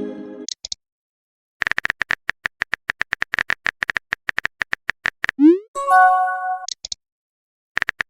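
Phone-keyboard typing sound effect: a rapid run of tapping clicks for about three and a half seconds, then a quick rising whoosh of a message being sent and a short synthesized notification chime a little past halfway.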